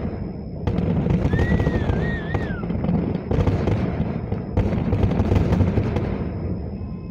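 Fireworks display: a dense, continuous rumble of overlapping aerial shell bursts, with sharp bangs standing out about half a second, three seconds and four and a half seconds in. A brief high whistle wavers up and down about a second and a half in.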